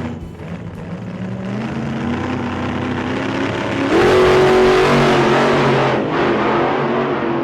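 Racing-car engine sound revving up in steps, as through the gears, getting louder and harsher from about four seconds in and easing off about two seconds later.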